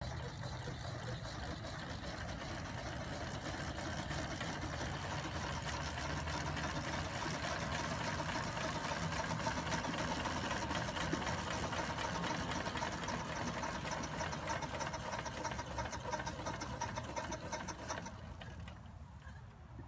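Steam engine of a coal-fired, steam-converted BF Avery tractor running with a fast, even chuffing beat and hiss of escaping steam. It falls away about a second and a half before the end.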